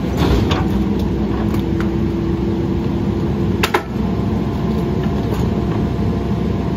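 Mack LE rear-loader garbage truck running with its packer compacting a tree trunk in the hopper. A steady whine holds for about three seconds and ends in a single sharp crack just under four seconds in, over the steady run of the truck.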